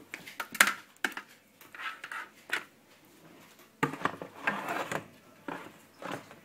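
Metal oven tray knocking and scraping as it is handled and pushed into an oven: a sharp clatter about half a second in, then scattered shorter knocks and a longer rubbing scrape around four to five seconds in.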